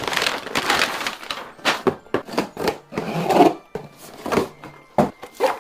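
A rapid, irregular series of loud cracks and crunches as a back is cracked.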